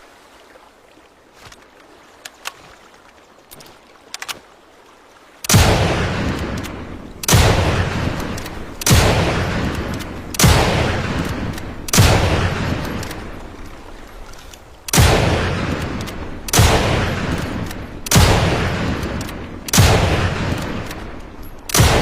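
Lee-Enfield bolt-action rifle fired ten times, about one and a half seconds apart with a short pause after the fifth shot, each shot trailing a long echo. A few faint clicks come before the first shot.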